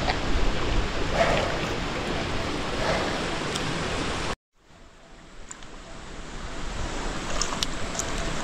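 Steady hiss of rain. It cuts off abruptly about four seconds in, then fades back up gradually, with a few faint ticks near the end.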